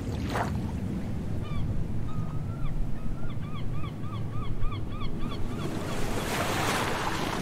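Sea ambience with a steady low rumble of waves. A bird gives a quick run of short honking cries, about two or three a second, from about a second and a half in until past the middle. A wave then rushes up in a swell near the end.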